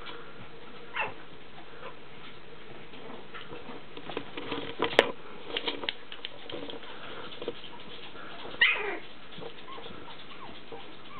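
Young puppies squeaking and yipping while they play-fight, with short squeals scattered through, a sharp click around the middle, and one longer yelp that falls in pitch about two-thirds of the way through.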